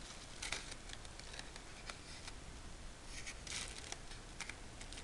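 Faint, irregular rustling and crinkling of crepe paper as it is rolled and squeezed tight by hand around a wire stem.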